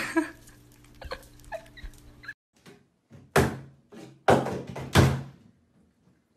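A run of hollow thuds against the side of a bathtub, three of them loud, beginning about halfway through, as a small dog standing on its hind legs paws and bumps at it.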